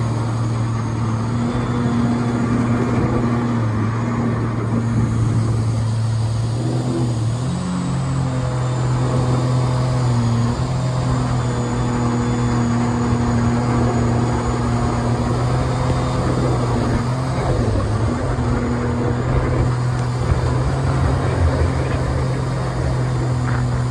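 A homebuilt mini jet boat's engine running steadily under way, its speed shifting slightly a few times.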